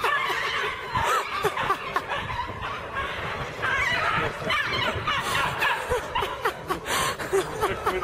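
People laughing and snickering in short bursts.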